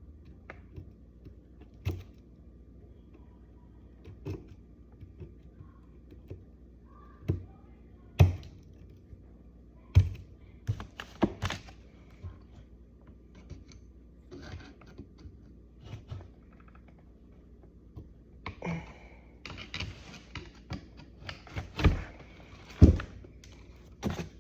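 Snap ring pliers working a steel snap ring down into its groove over a king pin: scattered sharp metal clicks and knocks, a few seconds apart at first and coming more often near the end.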